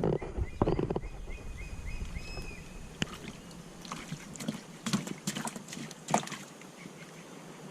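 Water splashing and sloshing about a small boat at the start, then scattered sharp knocks and clatters as gear is handled in the boat. A bird chirps faintly in the background early on.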